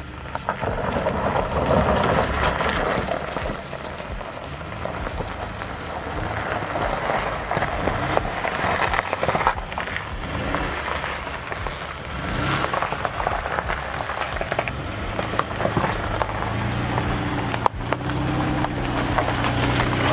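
Tyres crunching and crackling over loose gravel and dirt as a Toyota RAV4 climbs a trail, with its V6 engine running under load beneath the crunch. The engine note stands out more clearly near the end.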